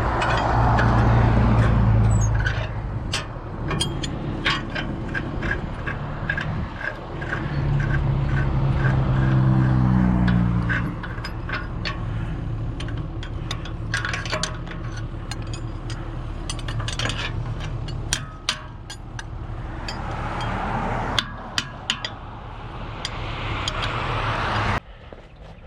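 Mini excavator's diesel engine working, pulling down under hydraulic load twice, with repeated metallic clanks and knocks from the bucket and thumb working at the posts and concrete.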